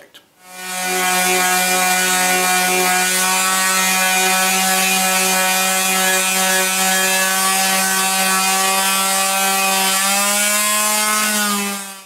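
Electric random orbital sander running steadily while sanding a small wooden piece with 220-grit paper: a loud, even motor hum with a hiss of abrasive on wood. Its pitch rises a little near the end before it stops.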